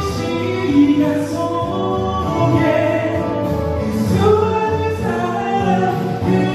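Slow ballad music: sustained accompaniment with singing.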